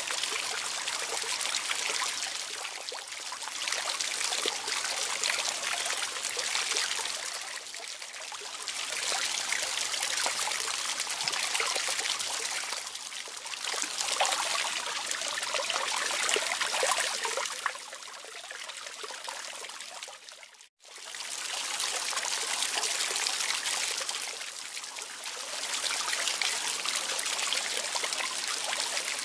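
Running water trickling steadily, swelling and easing every few seconds. It cuts out for an instant about two-thirds of the way through, then carries on.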